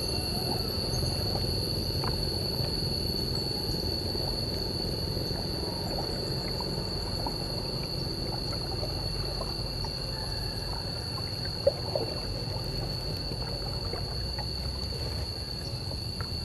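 Water gurgling and sloshing around a kayak on a river, over a low steady rumble. A steady high-pitched whine runs along with it, and there is a single sharp click about two thirds of the way through.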